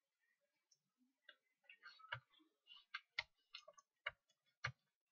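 Computer keyboard keys being typed: a string of irregular, sharp clicks starting about a second in, with a few harder keystrokes near the end.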